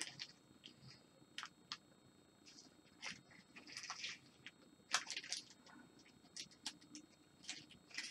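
Faint, irregular small clicks and short scrapes of miniature figures on their bases being picked up, handled and set down on a desk.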